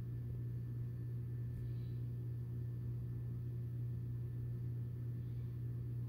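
Steady low hum with a faint high steady tone and a light hiss.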